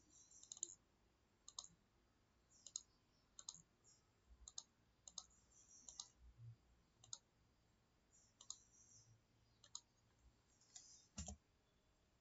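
Faint computer mouse clicks, about a dozen spaced irregularly roughly a second apart, with a slightly heavier click near the end.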